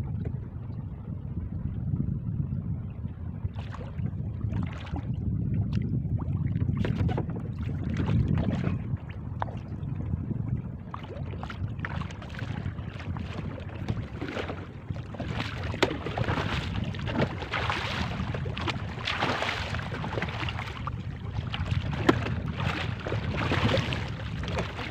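Wind rumbling on the microphone over open water. About halfway through, splashing and sharp knocks join in and grow busier toward the end as a hooked marlin thrashes at the surface beside the small canoe.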